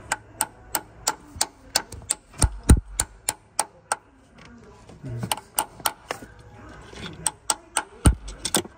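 Sharp, evenly spaced clicks, about three a second, with a pause of about a second midway and a few dull knocks.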